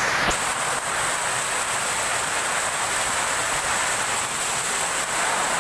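Torrential tropical downpour falling steadily, a dense, even hiss of heavy rain. A short click about a third of a second in.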